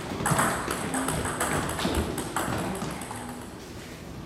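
Table tennis balls clicking off rubber paddles and the table in a rally, a quick run of sharp pings that thins out near the end.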